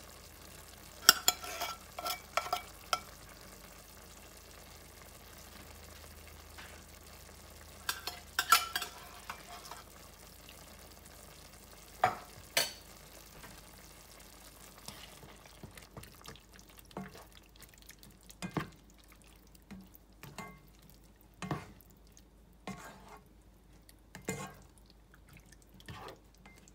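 Chicken and sausage pieces sizzling low in a nonstick pan, with a few sharp clinks of a utensil against the pan and can in the first half. In the second half a spatula stirs the thick condensed cream of chicken soup through the meat, in a run of quick scrapes and knocks against the pan.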